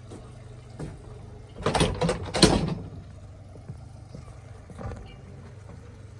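Tractor engine running steadily at low revs, a constant low hum. About two seconds in, a short run of loud rustling bursts.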